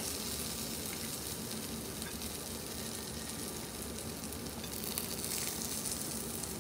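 Cheese-and-egg chaffle batter sizzling steadily on the hot, greased plates of a mini waffle maker, with a few light clicks of a metal spoon scooping batter from a glass bowl.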